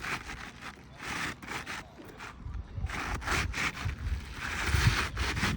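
Asphalt roof shingles scraping and rubbing against each other in uneven bouts as they are lifted and a shingle is slid back into place, the longest scrape near the end.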